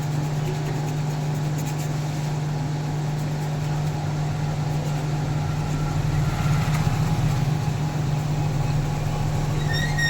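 Steady hum of an electric fan motor, running without a break and swelling slightly in the middle, with a sharp click right at the end.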